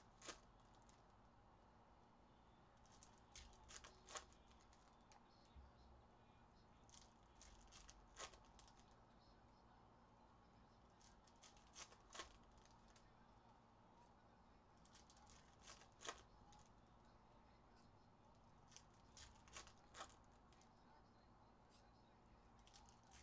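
Faint crinkling and tearing of trading-card pack wrappers being opened by hand, with scattered soft clicks as cards are handled and set on a stack.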